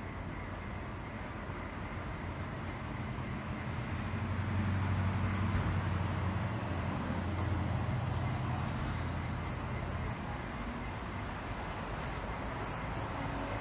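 NSW TrainLink V set electric double-deck intercity train pulling slowly into the platform, its low traction hum swelling about four seconds in and easing after ten.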